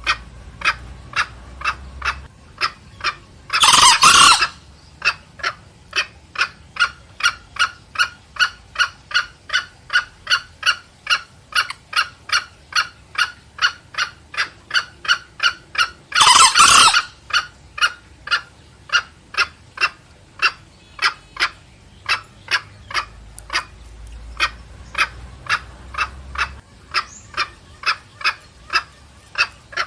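Green junglefowl calling back and forth: a steady run of short clucking notes, about three a second, with a short loud crow from the cock twice, about four seconds in and again about halfway through.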